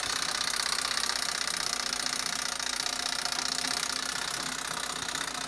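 Jenga Boom's wind-up detonator timer running down: a steady, fast mechanical ticking that keeps up without a break.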